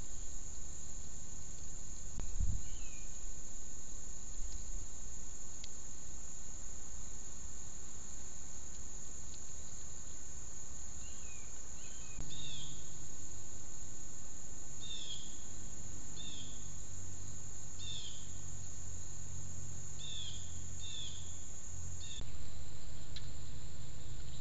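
Steady high-pitched insect chorus, with short descending bird chirps repeated about once a second through the middle and later part.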